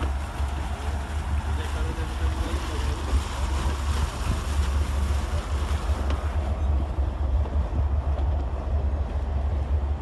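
Wind buffeting the microphone, a low fluttering rumble, over a steady hiss that thins out about two-thirds of the way through.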